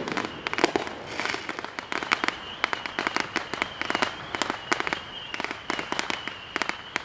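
Firecrackers going off in a rapid, irregular string of sharp pops and cracks, several a second, with a faint steady high whine underneath.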